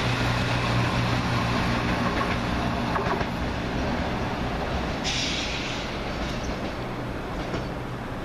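Class 170 Turbostar diesel multiple unit running through at speed, its underfloor diesel engines and wheels on the rails fading steadily as it moves away. A steady hiss comes in suddenly about five seconds in.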